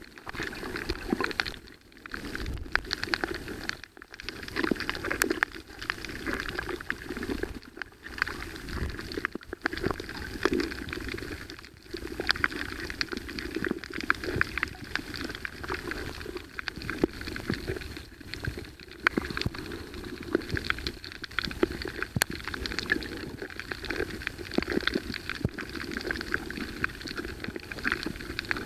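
Underwater sound picked up by a submerged camera on a coral reef: a steady bubbling, crackling water noise, with brief dips every few seconds.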